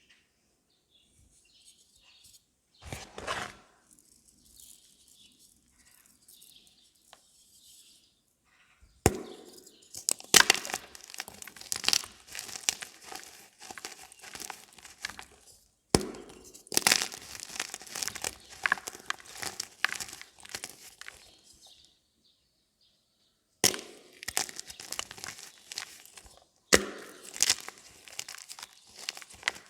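Blocks of gym chalk being crumbled close to the microphone: crisp crunching and crackling as the chalk breaks apart. It comes in four bouts, each starting with a sharp crack, after a quieter stretch of light rustling.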